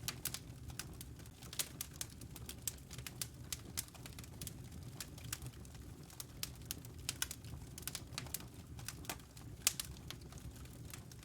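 Wood fire crackling in a fireplace: irregular sharp snaps and pops, several a second, over a steady low hum.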